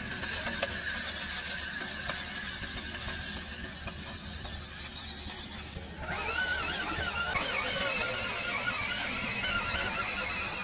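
High-pitched whine of a WPL RC crawler's small electric motor and gear drive as the truck climbs. The whine is steady at first, then about six seconds in it turns louder and wavers up and down in pitch with the throttle.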